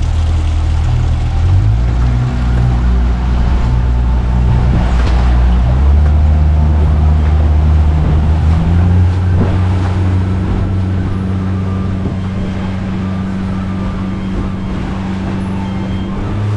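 A motor engine running steadily under way, with a low drone whose pitch shifts a few times as the engine speed changes.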